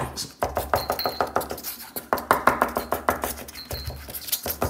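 Felt-tip marker tapping and scratching on paper in rapid, irregular ticks, several a second, as a hand tremor bounces the tip on and off the sheet. This is the sign of essential tremor: without the hand resting on the table, the pen cannot be kept on the paper while drawing a spiral.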